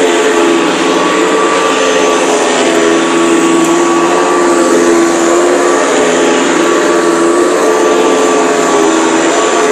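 Hoover Guardsman upright vacuum running steadily at full speed: an even rush of air with a steady motor whine. The motor is a replacement taken from a Hoover Decade 80, and it sounds a lot nicer and better than the original.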